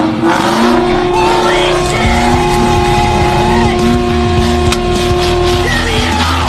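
Car engine running hard at high, fairly steady revs.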